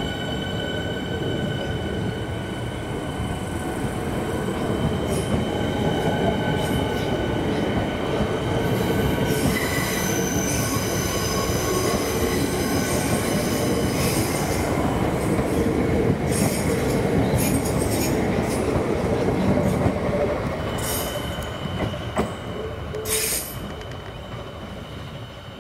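Suburban electric multiple-unit train running past along the platform: a steady wheel-and-motor rumble with high, steady squealing tones that fade midway and come back later. Two sharp clicks come near the end, and the sound then dies away.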